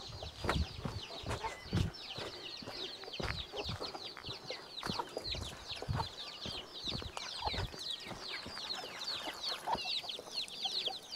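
Domestic chickens: chicks cheeping constantly, a dense run of short, high, falling peeps, with a few soft low knocks in between.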